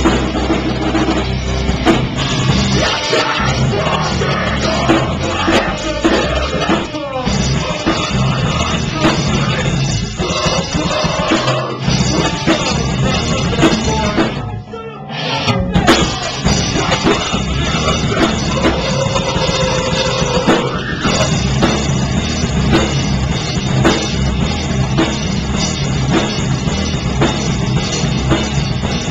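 Live rock band playing loud, with electric guitars and a drum kit, the music dropping out briefly about halfway through before crashing back in.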